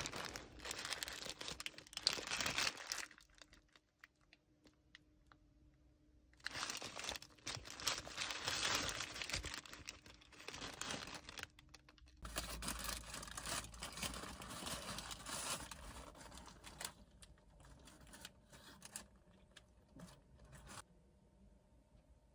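Paper food wrapper crinkling and rustling in bursts as a wrapped breakfast muffin sandwich is handled and unwrapped, with a short lull a few seconds in.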